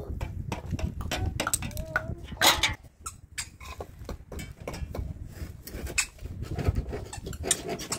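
Irregular clinks, taps and scrapes of metal kitchen utensils against a metal pot and concrete, with a few brief child vocalisations in between.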